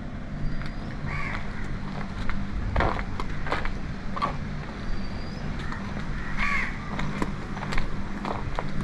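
Several short bird calls at irregular intervals, over a low steady rumble.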